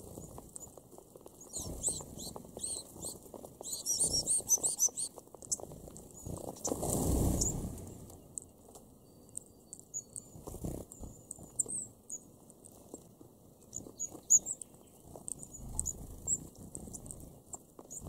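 High, thin chirps of red-browed finches come in quick clusters near the start and again later, over a steady patter of small clicks from birds pecking and shuffling through seed husks around a feeding dish. About seven seconds in, a rush of wings rises and fades as the finch flock flies off.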